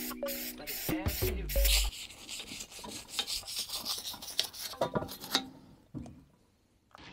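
Background music cuts out just after the start. It is followed by a close, crackling hiss of wheel-cleaner foam fizzing on the aluminium oil sump, which fades away in the last second or so.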